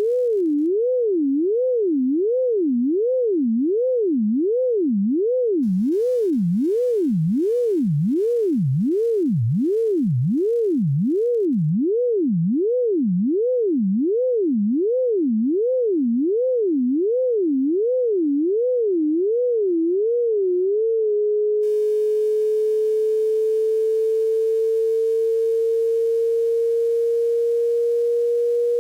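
A single pure electronic tone, playing a heart-shaped mathematical curve as sound. Its pitch swings up and down about one and a half times a second, the swings growing wider and then narrower. About three-quarters of the way through it settles into a steady tone that slowly rises in pitch.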